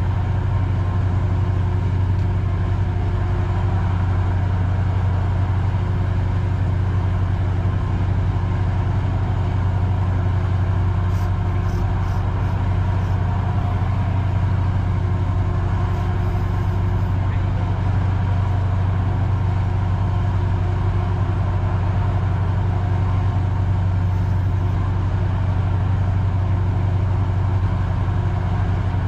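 Steady low drone of an engine running at constant speed, likely a fishing boat's motor, with no change in pitch or level throughout.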